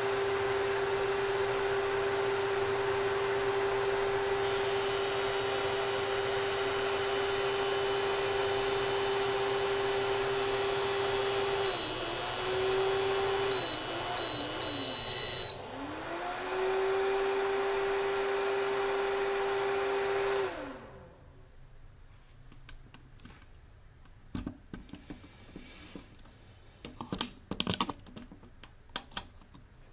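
Philco Smart Chef PCT01 induction cooktop humming with a steady mid-pitched tone under a pot of water. About twelve seconds in, a short series of high control-panel beeps sounds as the power setting is stepped down, and the hum dips and slides in pitch with each change. At about twenty seconds the hum stops, leaving faint scattered clicks.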